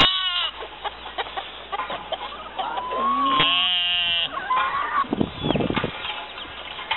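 Farmyard animals calling: a long bleat at the start and another about three seconds in, with chickens clucking among them.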